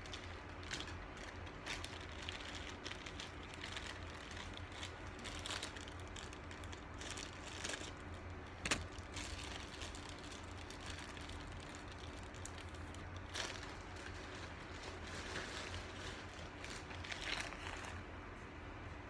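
Steady low room hum with scattered light clicks and rustles, and one sharper click about nine seconds in. Near the end, plastic sheeting rustles as a hand brushes through it.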